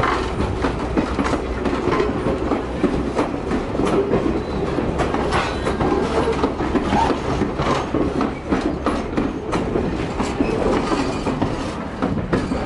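Wooden passenger coaches rolling slowly past, their wheels clacking irregularly over the rail joints above a steady low rumble.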